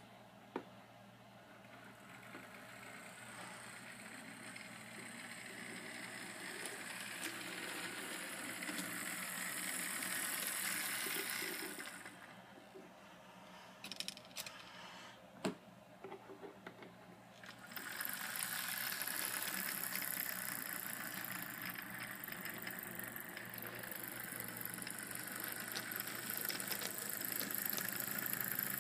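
HO-scale model diesel locomotive running on the layout track, its motor, gears and wheels making a steady rattling whir. The whir grows louder over the first ten seconds or so and drops away for several seconds with a few light clicks. It then comes back and holds.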